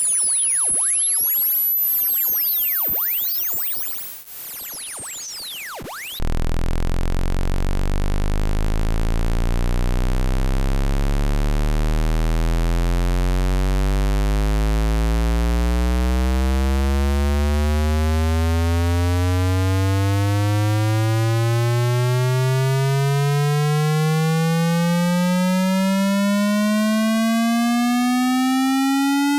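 Electronically generated test tones: a very high-pitched tone sweeping upward for the first few seconds, then, after a short quieter dip about six seconds in, a low buzzy tone rich in overtones that starts as a deep hum and glides slowly and steadily upward in pitch.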